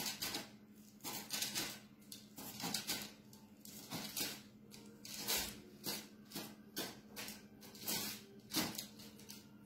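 Bread knife sawing back and forth through a soft chiffon sponge cake, a quick run of short rasping strokes, about two a second.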